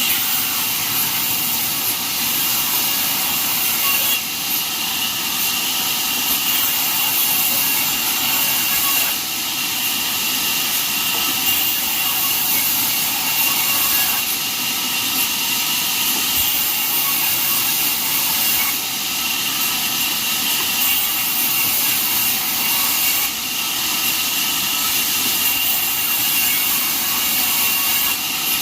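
Band sawmill running steadily, a constant noise with one steady high-pitched whine above it.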